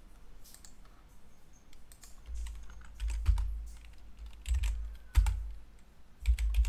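Computer keyboard keys tapped a few at a time as short numbers are typed into a program's console and entered. From about two seconds in, the keystrokes come with low thuds.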